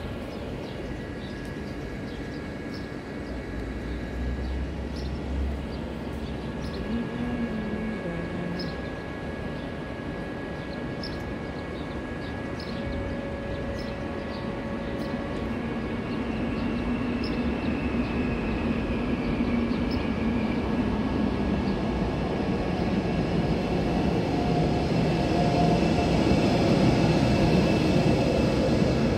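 Electric double-deck regional train at a station platform: a steady hum and rumble with held mechanical tones, growing louder through the second half.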